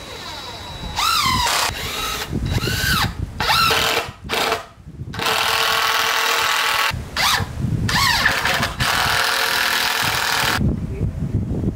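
Power drill run in several short bursts, its whine rising and falling in pitch as the trigger is squeezed and let go, then held for longer runs at steady speed in the second half.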